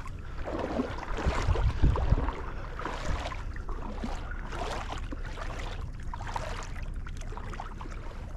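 Water sloshing and splashing as someone moves through shallow marsh water, with irregular low thumps over the first two seconds, then a steady wash.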